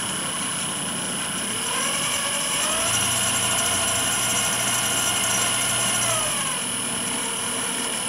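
Shimano Dendoumaru Beast Master 9000 electric fishing reel's motor running as it winds line onto the spool. Its whine rises in pitch about two seconds in as the speed lever is pushed up, holds steady, and drops back down about six seconds in.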